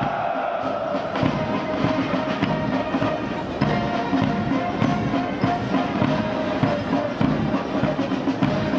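Military brass band playing, sustained brass notes over a steady beat.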